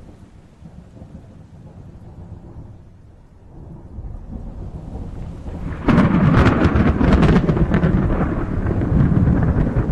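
Thunderstorm with rain: a low rumble of thunder builds, then about six seconds in a close thunderclap breaks with a sharp crackle and rolls on as loud rumbling.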